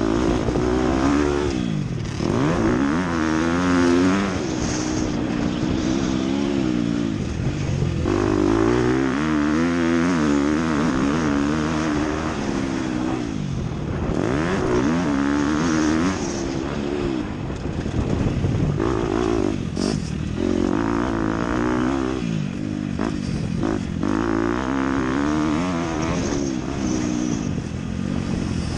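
Motocross dirt bike engine, close up, revving up and dropping back again and again as the bike accelerates and backs off around the track, its pitch climbing and falling every few seconds.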